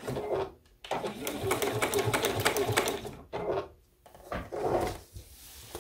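Juki DX7 sewing machine stitching at a steady rhythm through a fabric binding strip over foam board. It runs for about two seconds, stops about three seconds in, then goes in a couple of short spurts.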